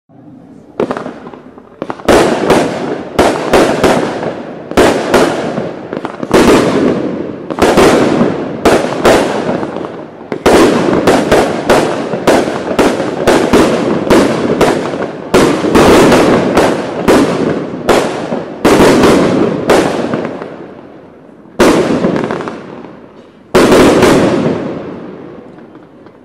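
Heavy Legend 16 firework cake firing its shots in a quick, irregular string: more than two dozen sharp bangs, roughly one a second, each trailing off in an echo, with a short pause before the last two bangs near the end.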